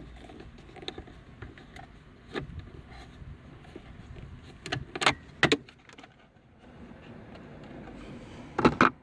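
Sharp clicks and clacks of hand tools and plastic interior trim being handled while screws are taken out of a car's lower console. There are a few scattered clicks, two loud ones about five seconds in, and a quick cluster of clacks near the end.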